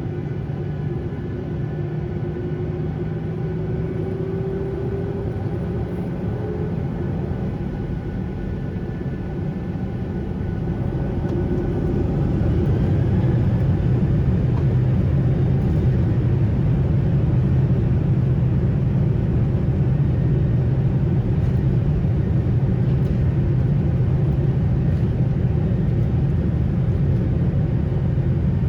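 Boeing 737-800's CFM56 engines heard from inside the cabin, running steadily at first, then about twelve seconds in spooling up with a rising whine to takeoff thrust; the sound grows louder and stays loud through the takeoff roll.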